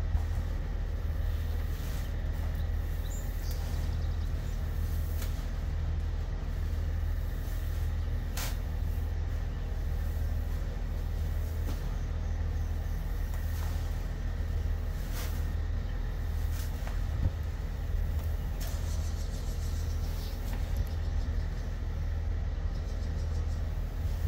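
A steady low rumble, with a few faint clicks and rustles from hands stirring dry grain feed in a plastic tub.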